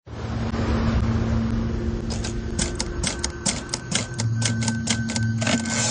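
Typewriter keys clacking at about four strokes a second, starting about two seconds in, over a low steady hum.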